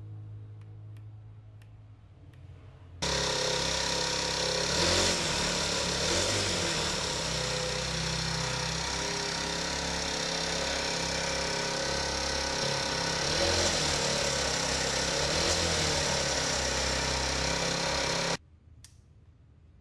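Small 25cc four-stroke engine running, steady with a couple of brief rises in level. It comes in suddenly about three seconds in and stops suddenly near the end.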